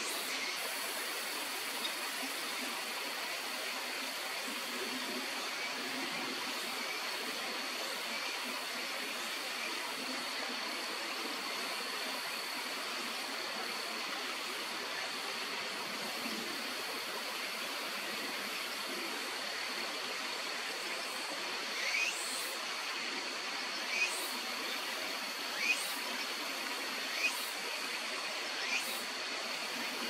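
Steady rush of stream water, with a crested kingfisher giving a series of six short, sharp calls about a second and a half apart in the last third.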